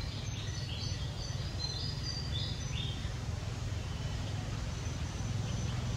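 Steady low background rumble with a run of short, high chirps over the first three seconds that then fade out.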